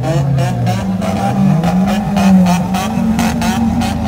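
Modified Maruti Suzuki Swift's engine and exhaust running at low speed as the car creeps past close by, the note rising a little, with a rapid, regular crackle over it.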